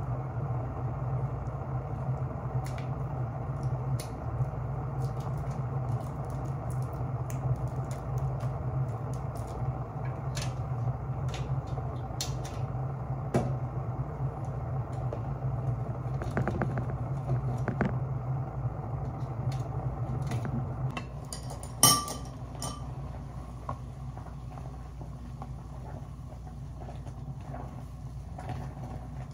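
Water boiling in a small electric hot pot, a steady low rumble that drops away about three-quarters of the way through, with a sharp knock just after. Scattered scrapes and clicks of a metal box grater on a block of Gouda cheese.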